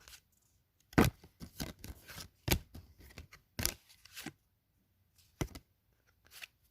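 Sports cards being handled and flicked through: irregular sharp snaps and taps of card stock, about seven in a few seconds.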